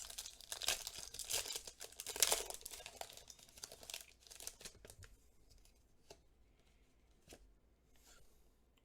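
Foil wrapper of a Pokémon trading card booster pack being torn open and crinkled, a dense crackling for the first four seconds or so, then only scattered light clicks.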